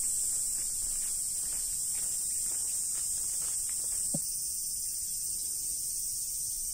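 Cicadas in the surrounding trees giving a steady high-pitched buzz.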